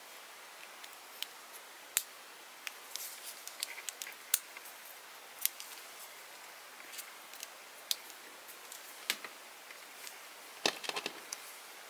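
Small plastic toy parts clicking and tapping as they are handled and fitted together: the pieces of a miniature plastic baby rocking chair. Scattered sharp clicks, with a short cluster of them near the end.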